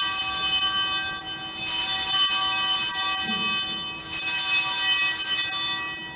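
Altar bells, a cluster of small Sanctus bells, rung in three shakes, each ringing bright and high for about two seconds: the signal of the elevation of the chalice at the consecration.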